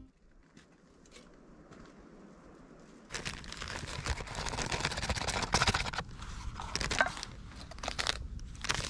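Music fades out at the start; about three seconds in, a steady run of crunching and crackling with many sharp clicks begins.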